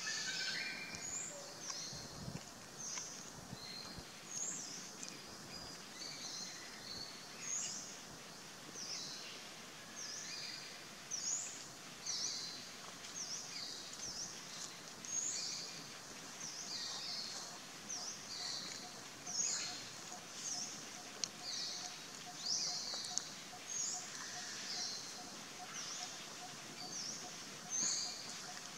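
Birds chirping over soft outdoor background noise: short, high calls repeating about once a second, with a faint steady drone joining about two-thirds of the way in.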